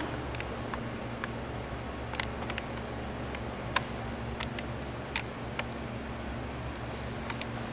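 Steady low background hum with scattered short, sharp clicks and taps, about a dozen spread irregularly over several seconds.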